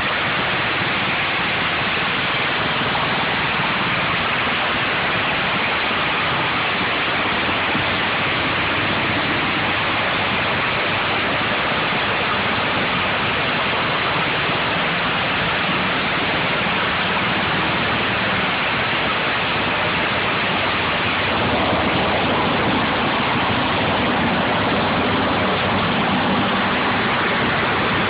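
Diesel-engine-driven screw briquette press running steadily while it extrudes a sawdust briquette: an even, dense noise with a faint low hum underneath, getting a little louder about three quarters of the way through.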